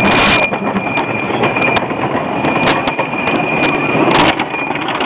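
Wooden roller coaster train clattering and rattling along its track at speed, with rushing air noise on the microphone, many sharp clacks and a thin steady high whine; it swells louder about four seconds in.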